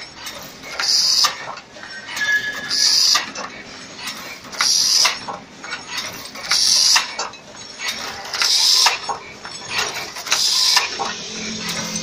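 Crimped wire mesh weaving machine running, cycling about every two seconds: each stroke brings a short, high rushing hiss with metallic clicks and clinks, with lighter clicking between strokes.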